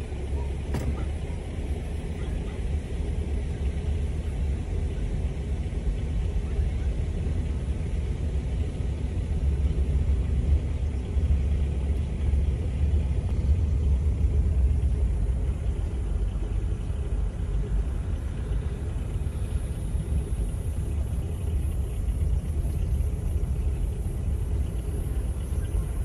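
Steady low rumble of a motor vehicle running, with no clear breaks.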